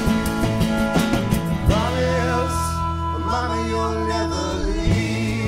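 Country-style band music with a sustained low accompaniment and a melody line that bends in pitch through the middle.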